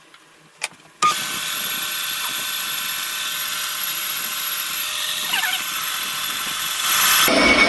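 A metal lathe switches on about a second in and runs steadily, a loud even hiss with steady whining tones, turning down a hinge pin. It gets louder near the end.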